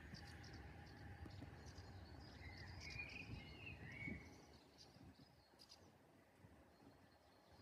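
Faint outdoor birdsong: scattered short high chirps and a brief warbling phrase about three seconds in, over a low rumble that fades after about four seconds.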